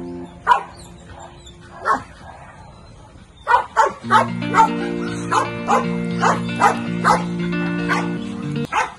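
Belgian Malinois barking: two single barks in the first two seconds, then a run of quick barks, about two or three a second, from about three and a half seconds in. Background music comes back in under the barking about four seconds in.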